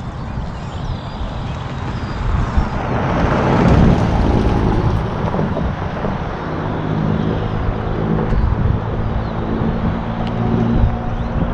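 A motor vehicle's engine: a rush of noise swells about three to four seconds in, then a steady low engine hum sets in after about six seconds.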